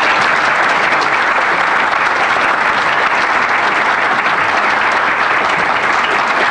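A roomful of people applauding, many hands clapping steadily and loudly.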